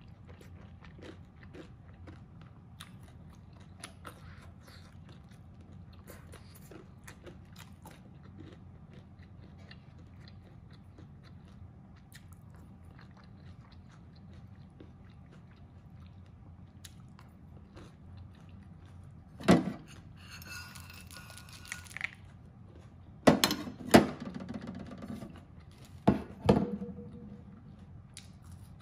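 Close-miked eating sounds: soft chewing and mouth clicks over a mouthful of mapo tofu and rice, then a handful of sharp, much louder crunches and knocks about two-thirds of the way through.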